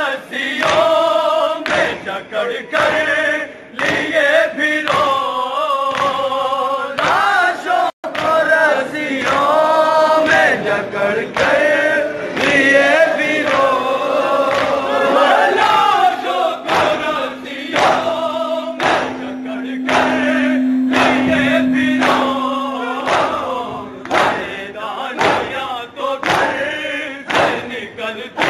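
A group of men chanting an Urdu noha (Shia lament) in unison, with rhythmic thumps of open hands beating chests in matam keeping the beat under the voices.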